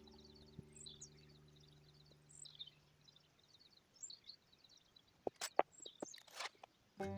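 Small birds chirping and twittering in short high repeated phrases. Several sharp knocks or clicks come about five to six and a half seconds in. Background music fades out during the first few seconds.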